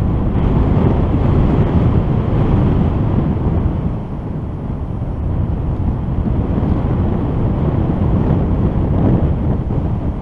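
Airflow buffeting the microphone of a paraglider pilot's camera in flight: a loud, steady, deep rush of wind noise, easing briefly about four seconds in.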